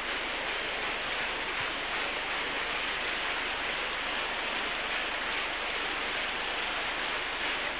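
A congregation praying aloud all at once: a steady wash of many overlapping voices with no single voice standing out.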